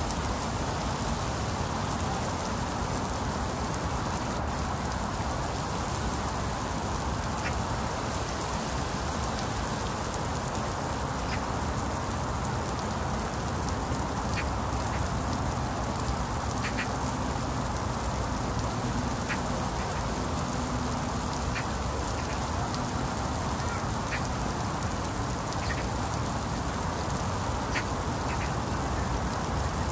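Heavy rain falling steadily on a paved road, roofs and foliage, with scattered single drops ticking sharply close by.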